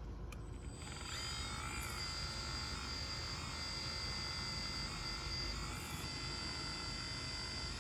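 Small electric motors of a radio-controlled Bobcat skid steer whining as it works, a high steady whine made of several tones. It comes in about a second in, with small shifts in pitch.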